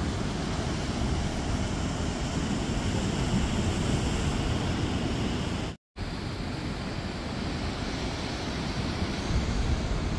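Steady rushing water noise, with some wind on the microphone, cutting out for a moment about six seconds in.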